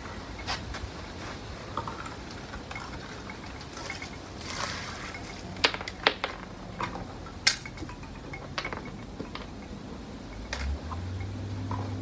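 Water being handled on a plastic tarp: scattered splashes, drips and sharp little taps, with a longer splash about four to five seconds in.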